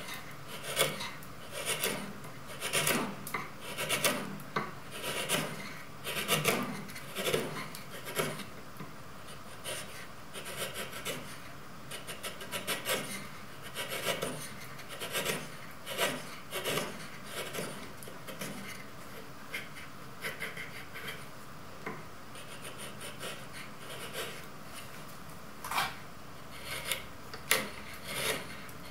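Sharp hand chisel paring a wooden block, a run of short crisp slicing strokes as thin shavings come off. The strokes are strongest in the first several seconds, lighter and finer through the middle, with a few sharper cuts near the end.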